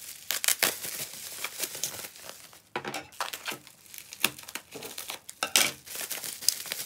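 Bubble wrap and plastic wrapping crinkling and rustling in irregular crackles as it is pulled and cut open from around tubs of cloud slime.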